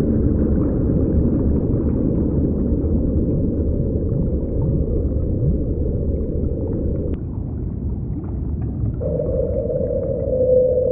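Deep underwater ocean recording: a low, dense rumble that cuts off sharply about seven seconds in, followed about two seconds later by a steady droning tone.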